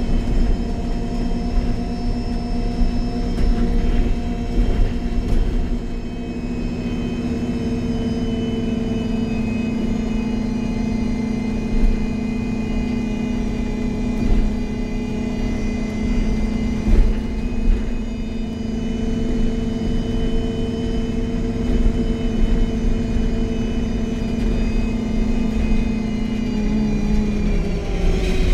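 MAN Lion's City G NG313 CNG articulated bus heard from inside: the natural-gas engine and Voith automatic drivetrain run at one steady pitch under a thin, high whine. The pitch drops a little near the end.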